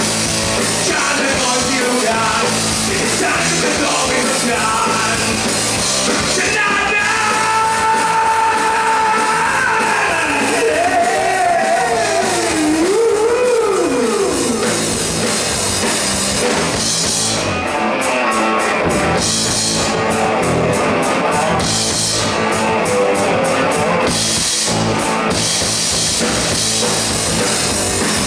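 Live rock band playing with drum kit, bass and electric guitar. A held lead line bends up and down in pitch through the middle. From about 17 seconds in, the band plays short stop-start hits for several seconds.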